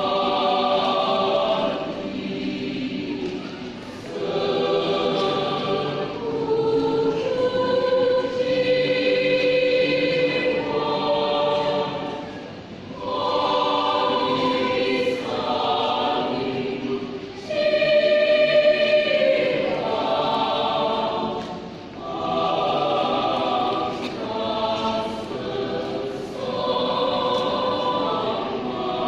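Mixed choir of men's and women's voices singing a piece from the German Romantic repertoire, in long sustained chords that swell and ease, with short breaks between phrases.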